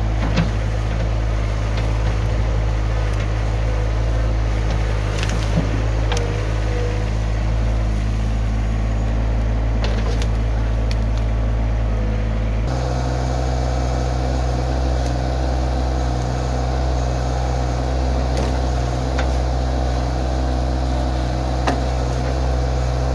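Yanmar compact tractor's diesel engine running steadily, with a few short knocks along the way. The engine note changes abruptly about halfway through.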